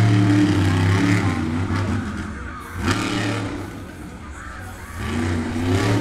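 Monster truck engine revving hard in surges: loudest at the start, easing off around four seconds in and climbing again near the end. A sharp thump comes just before three seconds in.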